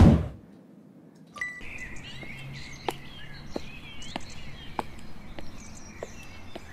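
A short, loud rushing hit at the very start, then outdoor ambience of birds chirping, with hard-soled leather shoes stepping on a tiled floor, a sharp click a little under twice a second.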